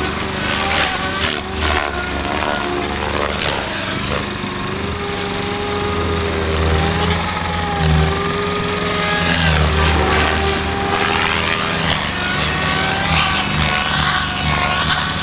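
Electric SAB Goblin 700 RC helicopter flying 3D aerobatics: a motor-and-rotor whine with the swish of the main blades. Its pitch keeps rising and falling as the helicopter flips and changes rotor load.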